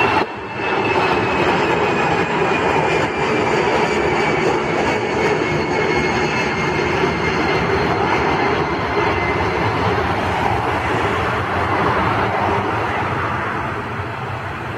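An Airbus A318's CFM56 turbofan engines at climb power as the airliner passes overhead just after takeoff. A steady loud jet noise carries a high whine that slowly falls in pitch as the aircraft moves away. The sound fades a little near the end.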